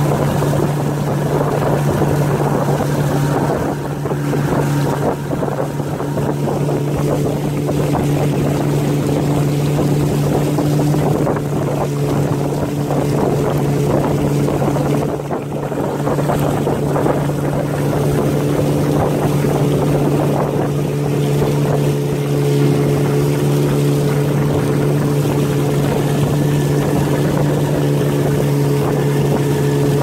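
Outboard motor of a narrow river longboat running at a steady pitch while under way, with water rushing along the hull.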